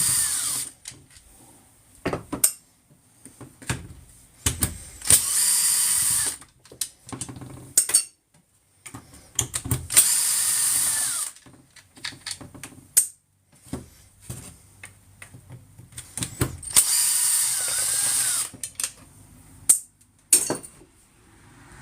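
Small cordless power tool motor run in short bursts of one to two seconds, about every five to six seconds, each winding down as the trigger is let go. Clicks and handling knocks come between the bursts.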